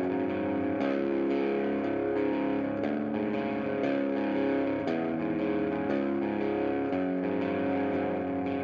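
Background music led by a guitar, its chords changing about every two seconds.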